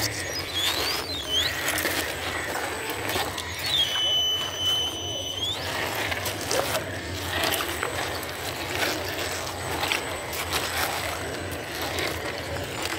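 Axial Ryft RBX10 radio-controlled rock crawler crawling over river rocks: its electric motor and gear drivetrain running, with clicks and scrapes of tires and chassis on stone. A steady high whistle lasts about a second and a half a few seconds in.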